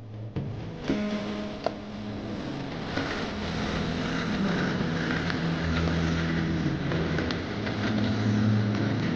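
1/10-scale RC rock crawler's electric motor and gears whining as it crawls over rock, the pitch holding steady and then shifting several times. Two sharp clicks sound about a second in.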